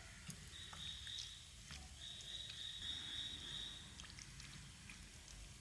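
Faint taps and scrapes of a serving spoon against a glass Pyrex baking dish as a thick pasta mixture is spooned in. A faint high steady whine comes twice, about half a second in and again about two seconds in.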